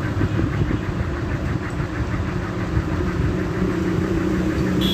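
A steady low mechanical hum: a motor or engine running continuously.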